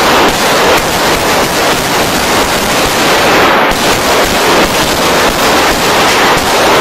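Heavy, continuous small-arms gunfire: many overlapping shots in a dense, unbroken rattle with no pause.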